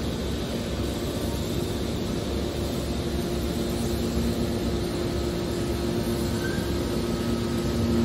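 Hydraulic metal scrap baler running: a steady mechanical drone from its motor and hydraulic pump, with a steady hum and no sharp impacts.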